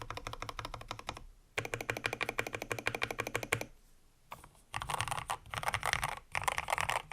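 Typing in fast bursts on a 60% mechanical keyboard with Gateron Milky Yellow linear switches, an FR4 plate, XDA keycaps and a wooden case. Runs of quick keystroke clacks are broken by short pauses.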